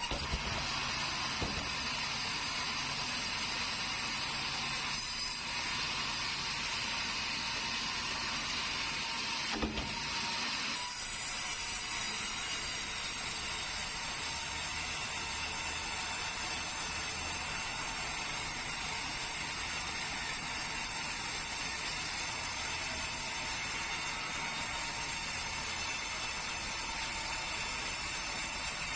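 Sawmill saw running steadily while sawing keruing hardwood, a continuous machine sound with several steady high tones. A few short knocks come near the start and about ten seconds in.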